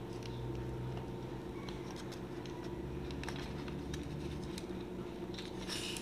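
Faint scattered clicks and taps of a plastic timer housing and its wires being handled and fitted back together, over a steady low hum.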